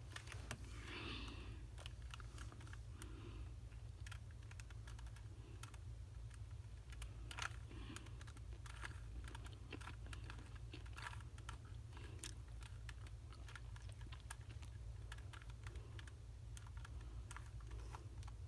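Rubik's Cube layers being turned by hand: faint, irregular plastic clicks, over a low steady hum.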